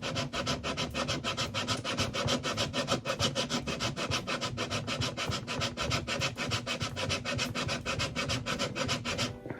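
Rapid back-and-forth abrading strokes on the wooden neck heel of a Harmony archtop guitar, about six a second, taking down a hump so the heel will sit tight against the body. The strokes stop just before the end.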